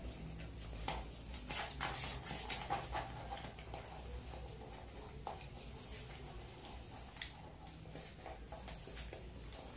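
Close mouth sounds of eating instant cup noodles: slurping, chewing and breathing, with a plastic fork clicking against the cup. The clicks and smacks come thickly in the first few seconds, then more sparsely, over a low steady hum.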